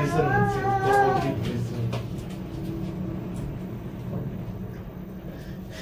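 Hotel passenger lift running with a steady low hum. In the first second or so a child's voice rises over it in a brief sing-song note.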